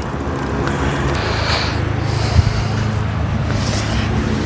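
A steady low mechanical hum of a running engine or motor, with a single click about two and a half seconds in.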